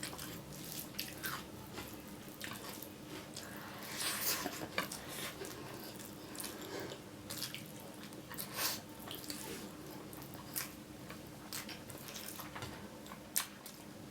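Close-miked eating sounds: irregular soft wet clicks and smacks of chewing and biting, over a faint steady hum.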